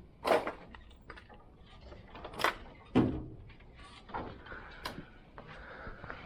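Several separate knocks and clunks of tools and gear being handled and set down, the loudest near the start and about three seconds in, with lighter ticks between.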